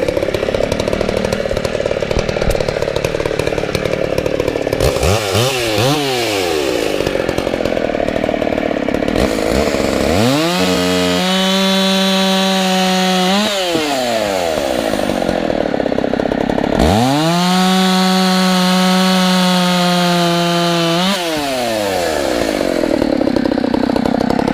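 Husqvarna 266 SP two-stroke chainsaw, running on fresh fuel after being pulled from a junkyard. It idles, is blipped once, then twice revved up to high speed and held for a few seconds before dropping back to idle.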